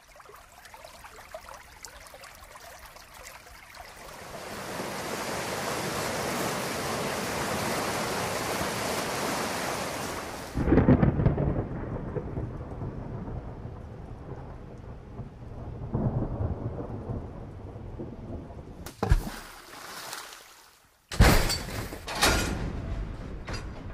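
Steady rain, with a loud clap of thunder about ten seconds in that rumbles and dies away, and a further rumble a few seconds later. Near the end the rain gives way to a few loud, sharp, separate noises.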